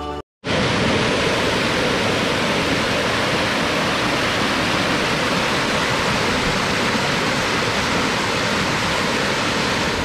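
Water of a small waterfall rushing and splashing over rock in a steady, loud rush, starting about half a second in after a brief gap of silence.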